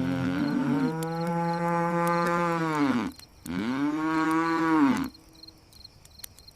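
A cow mooing: two long drawn-out calls, the first about three seconds and the second shorter, each dropping in pitch as it ends. Faint, regular cricket chirping goes on underneath.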